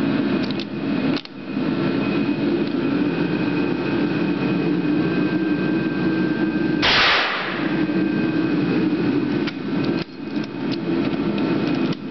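Beaumont M71/88 bolt-action rifle: metallic clicks as the bolt is closed on a cartridge, then a single shot of its 11 mm black-powder round about seven seconds in, ringing briefly in an indoor range. A few seconds later more metallic clicks come as the bolt is worked open to extract the spent case, over a steady background hum.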